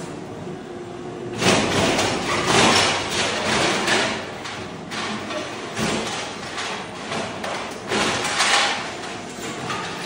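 Floor scraper machine's blade breaking ceramic floor tile and thinset off a concrete slab: a dense run of cracking and crunching that starts about a second in and comes in irregular surges.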